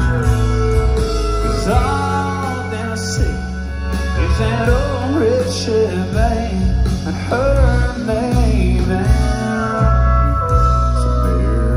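Live country band playing a song, with drums, heavy bass, guitars and a sung melody, recorded from within the crowd.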